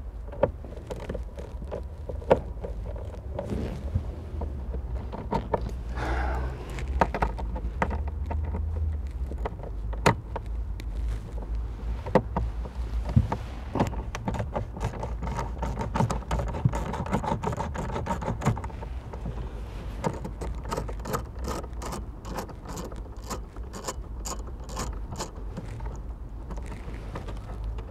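Socket wrench on an extension bar clicking and knocking as 10 mm dashboard bolts are undone by feel, with a quicker run of clicks from about twenty seconds in.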